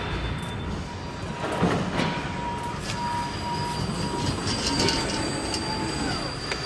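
Mechanical warehouse noise: a steady high whine over a noisy hum, with a few knocks and a squeal that falls in pitch near the end.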